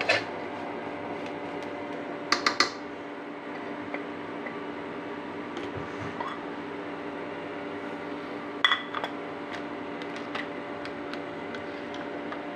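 A metal cooking pot and utensils clattering a few times, briefly about two seconds in and again about nine seconds in, over a steady hum.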